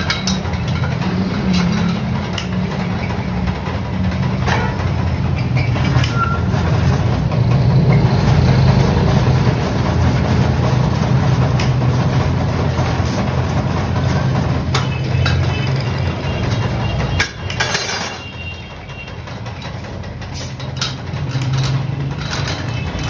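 Metal lathe running steadily with a low drone as steel wire is wound onto a turning mandrel into a coil spring, with occasional metallic clicks. The drone drops suddenly about three-quarters through and carries on quieter.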